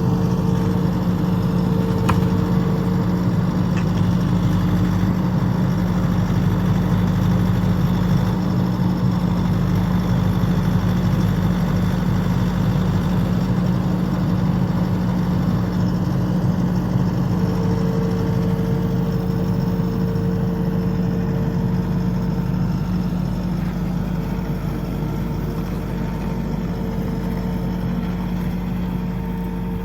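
Skid steer engine running steadily, a loud even hum, with a fainter higher whine that comes and goes.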